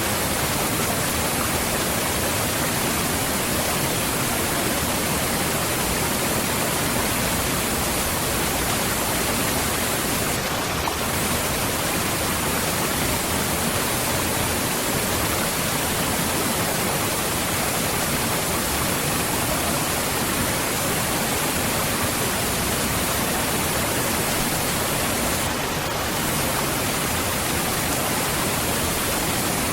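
Waterfall: a steady, full rushing of falling water, even and unbroken.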